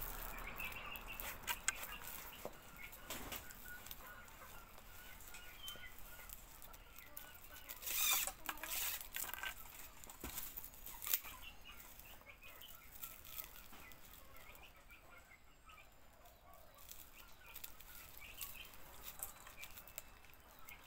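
Dry grass-flower broom bristles rustling and crackling, with the rasp of a plastic binding strip, as a small broom is bound by hand; a louder rustle comes about eight seconds in. Chickens cluck faintly in the background.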